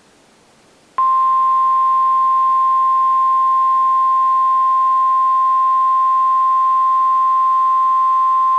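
Emergency Alert System attention signal for a tornado warning: a single loud, steady tone just above 1 kHz, the National Weather Service's 1050 Hz warning alarm tone. It begins about a second in after a short pause.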